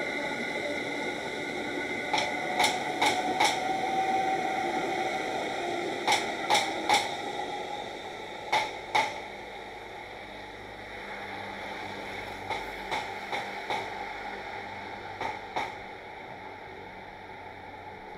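281-series Haruka limited express train passing over steady track noise, its wheels clacking over rail joints in quick groups about 0.4 s apart: a run of four, three, two, then fainter fours and twos as the train draws away.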